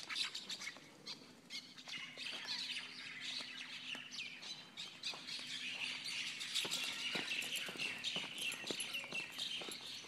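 A flock of mynas chattering and squawking during a fight, a dense, continuous run of short chirps and harsh calls.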